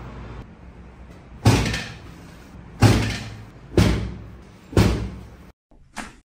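Four heavy thumps about a second apart as chiropractic thrusts drive a patient lying face down into a padded treatment table, each dying away quickly, followed by a shorter, sharper knock near the end.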